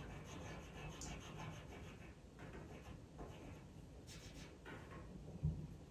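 Pastel pencil scratching faintly on Pastelmat paper in a series of short strokes, laying in fur hairs. A soft low thump about five and a half seconds in.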